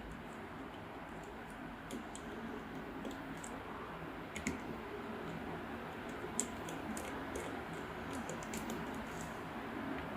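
Scattered small clicks and taps of a screwdriver and metal parts as a heat sink is fitted onto a laptop motherboard, over a faint steady background hum.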